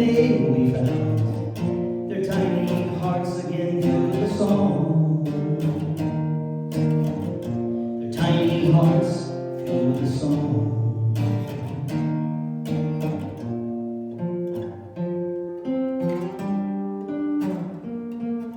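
Acoustic guitar playing the instrumental close of a song: a run of plucked notes that thins out, with a final chord near the end that rings on.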